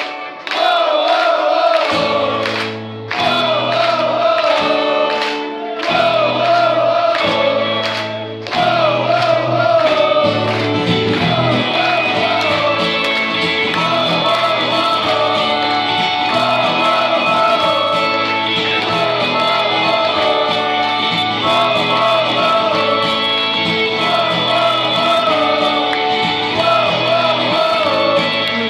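Live rock band playing: singing over acoustic and electric guitars, with the crowd singing along. The low guitar notes come in about two seconds in and break off briefly a couple of times before the band plays on steadily.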